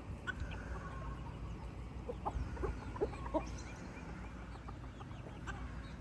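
Backyard chickens clucking as they eat, with a cluster of short clucks in the middle.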